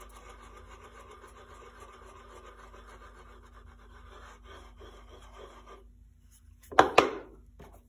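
Chisel bevel being honed on an oiled black hard Arkansas stone: a faint, steady scraping of steel on stone that stops about six seconds in, followed by two sharp knocks close together.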